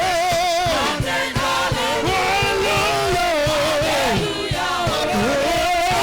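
Gospel choir singing long held notes with a wavering vibrato, over band accompaniment with a steady percussion beat.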